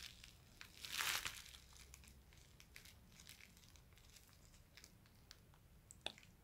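Faint handling noise of a plastic action figure being worked by hand: a brief crinkling rustle about a second in, then scattered small clicks, with one sharper click near the end.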